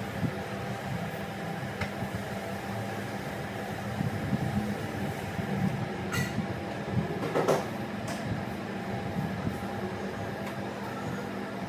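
A steady low rumble runs throughout, with a few short brushing scrapes and knocks from a broom sweeping the floor; the loudest scrape comes about seven and a half seconds in.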